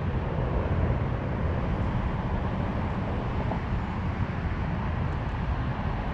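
Steady noise of passing road traffic on a nearby highway.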